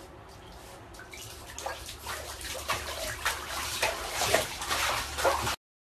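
Bathtub water splashing and sloshing as a Shiba Inu paddles in it. The splashing builds from about a second and a half in into quick, uneven splashes that grow louder, then cuts off suddenly near the end.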